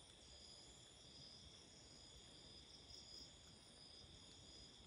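Faint chorus of night insects: several steady high-pitched trills, one of them pulsing on and off in a slow rhythm.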